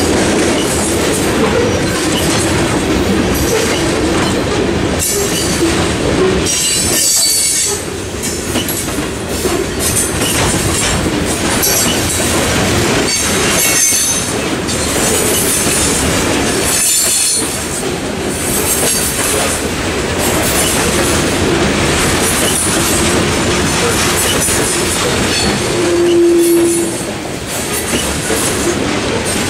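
Freight train of covered hopper cars rolling steadily past a level crossing: continuous wheel-and-rail rumble with the clickety-clack of wheels over rail joints. About 26 seconds in comes a brief, loud wheel squeal.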